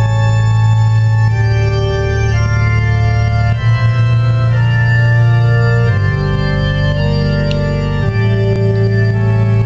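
Organ music: slow, held chords over a deep bass, the chord changing every second or two.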